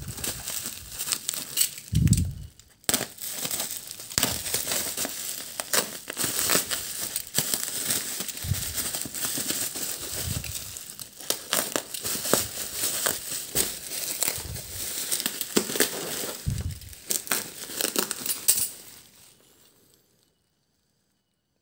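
Bubble wrap crinkling and crackling as hands unwrap and turn a wrapped parcel, with a few low thumps of handling. It fades out and goes silent about two seconds before the end.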